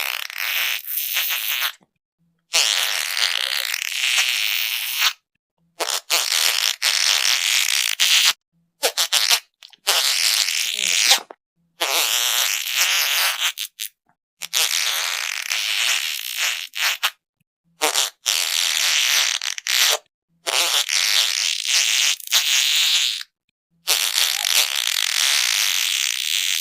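A run of about ten fart sounds, one after another, each lasting one to three seconds with a short silent gap between them. They are raspy and hissy, with little bass.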